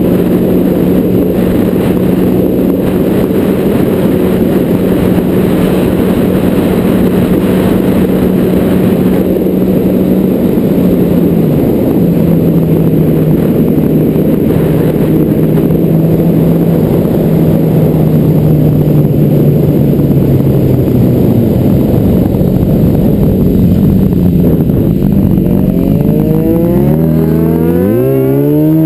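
Car engine and road noise at a steady cruise. The engine note drops about eleven seconds in and sinks further as the car slows, then rises again near the end as the car accelerates.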